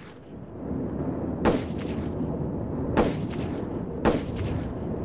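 Three heavy impact hits about a second and a half apart, each ringing out, over a low rumble that swells in during the first second: cinematic trailer-style sound design.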